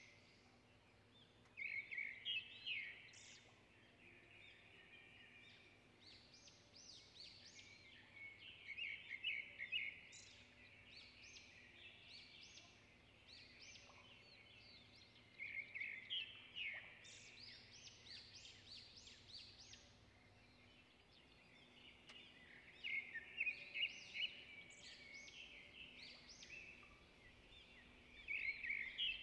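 Small birds chirping, with louder bursts of quick twittering about every six or seven seconds and scattered quieter chirps between them.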